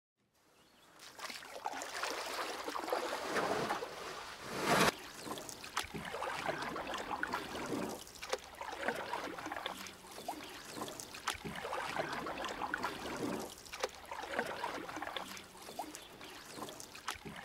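Water splashing and trickling, irregular, with scattered sharp clicks, starting about a second in.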